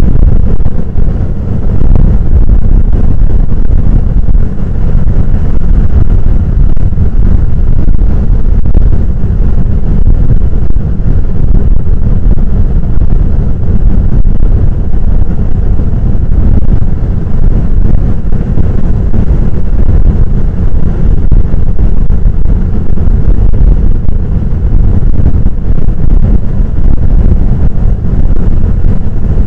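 Heavy big-wave surf breaking and rolling ashore: a loud, continuous low rumble with no separate crashes standing out.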